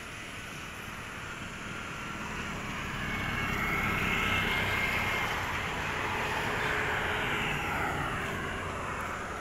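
A motor vehicle passing by: a steady engine and road noise that swells to a peak about four to five seconds in, then slowly fades.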